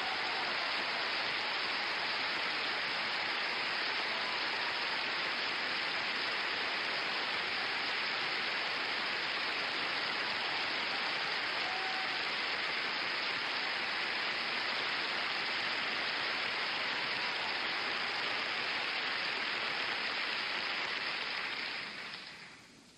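Theatre audience applauding: a dense, steady wall of clapping that dies away near the end.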